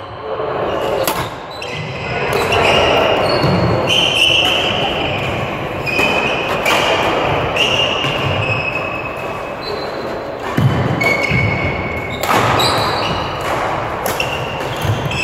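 Badminton hall din: the sharp hits of rackets on shuttlecocks and short squeaks of shoes on the court floor, over a murmur of players' voices, echoing in the large hall.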